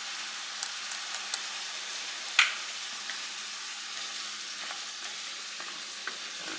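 A skillet of tomatoes, spinach, garlic and red bell pepper sizzling steadily in dry white wine, deglazing the browned bacon bits stuck to the bottom. A few light clicks and one loud, sharp crack about two and a half seconds in.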